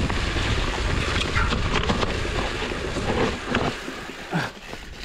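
Wind buffeting the microphone on a moving mountain bike, with tyre noise and scattered clicks and rattles from the bike over a wet, rocky trail. The noise dips about four seconds in.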